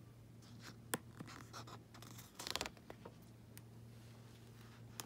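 A paper picture-book page being handled and turned: a faint click about a second in, then a brief papery rustle and scrape around two and a half seconds in.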